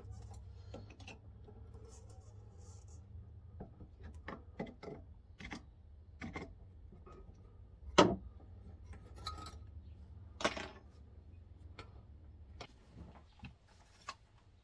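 Scattered clicks, clinks and knocks of hand tools and metal parts being handled on a workbench, with two louder knocks about eight and ten and a half seconds in, over a low steady hum.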